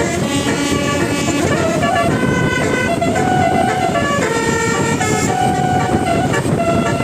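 Indonesian 'telolet' bus horn, a twelve-note set of air-horn trumpets, playing a melody of short held notes that step from pitch to pitch two or three times a second, over a steady low rumble.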